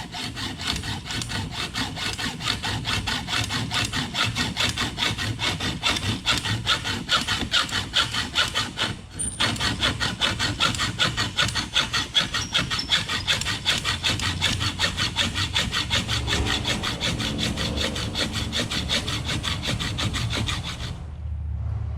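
Hand hacksaw cutting through part of a kayak's seat mount in quick, even back-and-forth strokes. The sawing breaks off briefly about nine seconds in, then resumes and stops about a second before the end.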